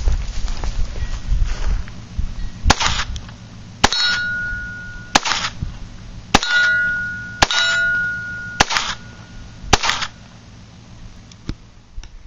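Ruger SR22 .22 rimfire pistol firing seven shots about a second apart. Several shots are followed by the ringing ding of a steel plate target being hit. Wind rumbles on the microphone over the first two seconds.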